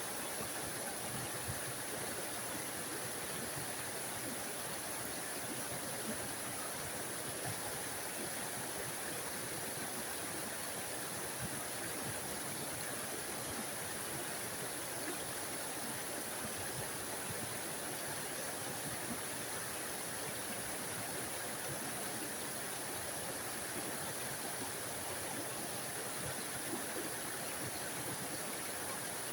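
Small forest waterfall: water splashing and rushing in a steady, even hiss that doesn't change.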